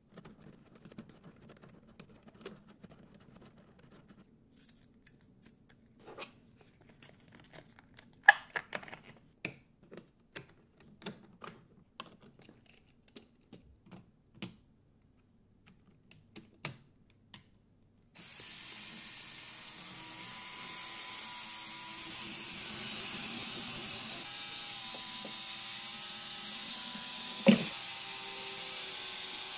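Lego Technic pieces clicking and tapping as they are handled and fitted by hand. Then, about two-thirds of the way in, the Lego walker's electric motors and gear trains start running with a steady whir and a wavering whine, with one sharp knock near the end.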